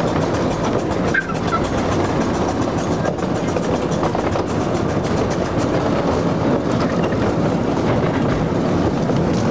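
Cagney miniature train running along its track: a steady rumble from the riding car with rapid clicking of the wheels on the rails.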